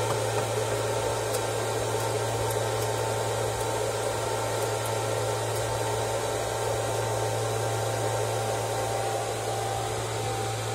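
Cooling fans of rack-mounted radio amplifier units running with a steady whir over a low hum.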